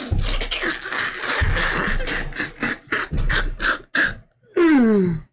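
A man laughing hard in quick, breathless gasping bursts, ending in a high squeal that slides down in pitch.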